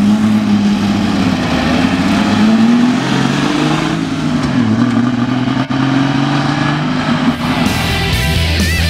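1975 Triumph TR6's straight-six engine as the car drives past, its note climbing, then dropping about four and a half seconds in and holding. Near the end the engine fades and rock music comes in.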